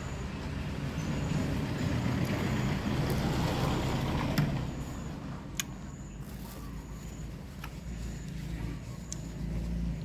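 A motor vehicle passing by: a low rumble that swells over the first few seconds, peaks about four seconds in and fades away, over a steady low hum, with a few light clicks.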